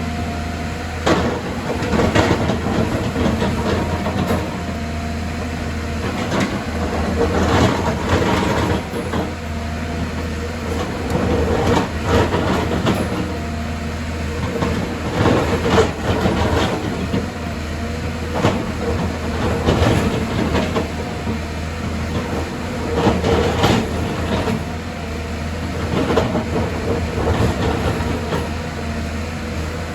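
Excavator's diesel engine running steadily, with irregular metallic clanks and knocks every second or two.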